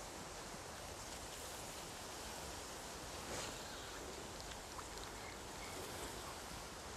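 Faint, steady outdoor background noise with light rustling and a few faint clicks.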